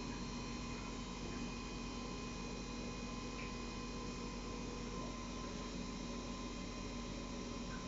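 Kern MMT milling machine running steadily: an even hum with several steady higher whining tones.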